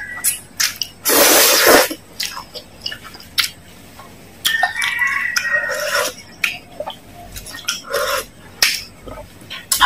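Close-up eating sounds: a loud slurp of instant noodles about a second in, then chewing. A metal spoon clicks and scrapes against a metal tray, and a spoonful of broth is sipped near the end.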